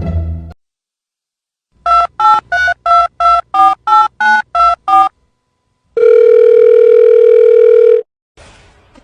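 Telephone keypad tones: about ten quick two-note beeps, as when a number is dialled, followed by one steady tone for about two seconds.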